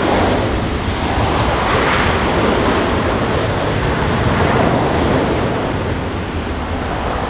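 Jet airliner engines running on the runway: a steady, loud roar.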